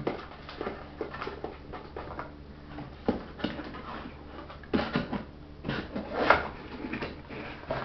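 Handling noise of paper and a small cardboard box: rustling and light knocks as things are put into the box and it is moved across a desk, with a louder brief rub about six seconds in.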